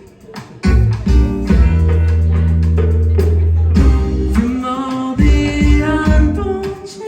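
Live rock band playing, with guitar and a steady bass line. The music drops away briefly at the start, then comes back in full under a second in.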